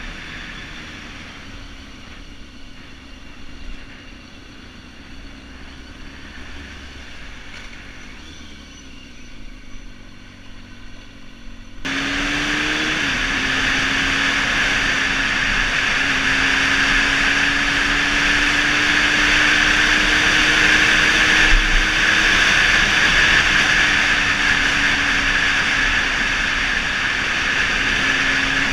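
Kawasaki Ninja 636 inline-four engine running at a fairly steady pitch under the ride, with an even rush of air noise. The sound becomes abruptly louder about twelve seconds in, and the engine note dips briefly just after.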